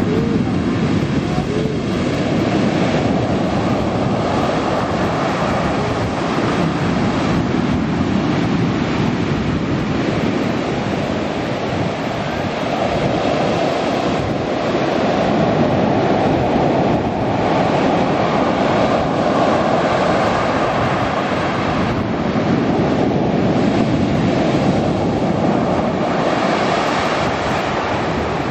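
Sea waves breaking and washing up a pebble beach, a continuous rushing surge that swells and eases, with the crackling rattle of pebbles dragged by the water.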